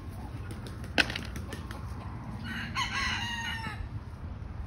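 A rooster crows once, a short call about three seconds in with a slightly falling pitch. A single sharp click sounds about a second in.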